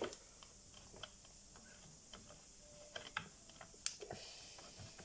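Faint, scattered clicks and taps of small plastic and metal chainsaw parts being handled as a STIHL MS 180 is taken apart to remove its carburetor.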